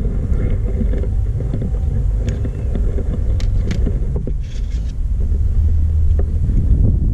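A steady low rumble fills the background, with a few light clinks of a spoon against ceramic bowls and of bowls on a metal tray.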